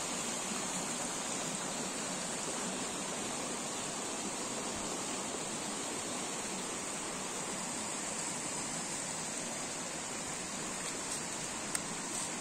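Shallow creek flowing over rocks and stones, a steady even rush of water, with one brief click near the end.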